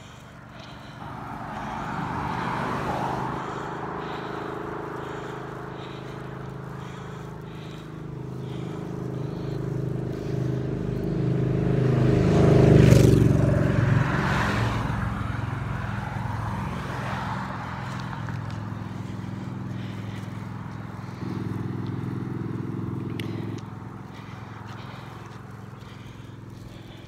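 A motor vehicle's engine on the road grows louder to a peak about halfway through as it passes, then fades.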